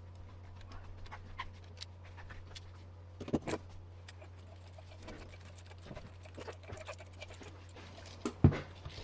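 Scattered light clicks and taps of small RC kit parts and tools being handled, with two louder knocks about three and a half and eight and a half seconds in.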